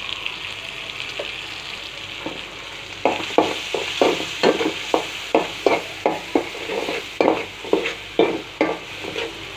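Prawns and chilli powder sizzling steadily in hot oil in a metal karai. From about three seconds in, a metal spatula stirs and scrapes the pan in quick even strokes, about three a second, until near the end.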